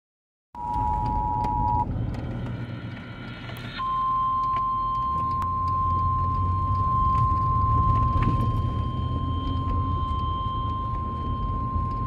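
A car radio plays the Emergency Alert System tones for a severe thunderstorm warning. A two-note attention tone sounds for about a second, followed by a short buzzy stretch. Then a single steady high alert tone holds for about nine seconds over the low rumble of the car.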